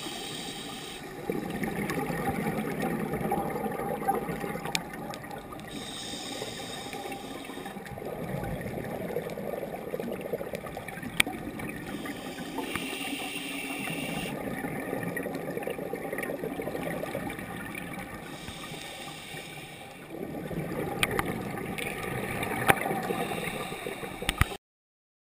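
Scuba breathing heard through an underwater camera housing: exhaled regulator bubbles gurgling, with a short hiss of inhalation through the regulator about every six seconds. The sound cuts off suddenly near the end.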